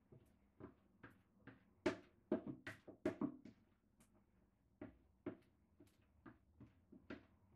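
A spatula tapping and scraping against the side of a mixing bowl as cake batter is scraped out into a cupcake tin: a run of short, uneven taps, roughly two a second, loudest in a cluster about two to three seconds in.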